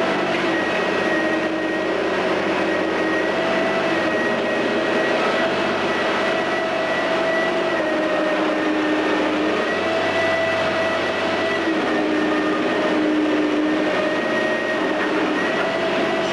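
Menck cable crawler crane's diesel engine running steadily under load as the machine works, a continuous mechanical drone with a few held tones that shift slightly in pitch now and then.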